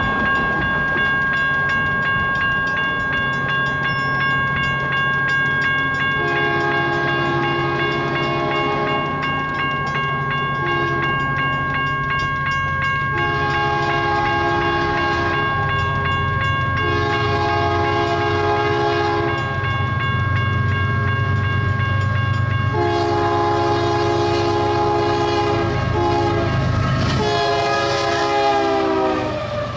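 BNSF ES44AC diesel locomotive sounding its multi-chime air horn in a series of blasts, mostly long with a short one among them. The diesel engine drone grows louder as it approaches, and the last blasts drop in pitch as it passes. A steady high ringing tone sounds underneath and stops a little past twenty seconds in.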